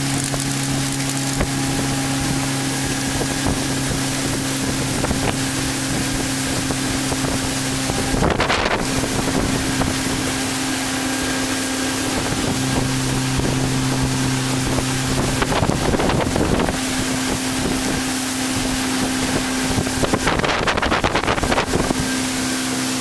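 Motorboat engine running steadily at speed, a constant hum under the rush of wind on the microphone and water along the hull. Three louder rushes of noise break in about 8, 16 and 21 seconds in.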